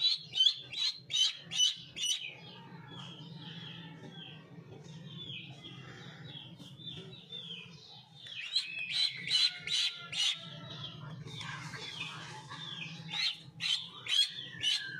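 Duckling peeping over and over: short high peeps that slide down in pitch, in loud quick runs at the start and again from about halfway, softer in between. A steady low hum runs underneath.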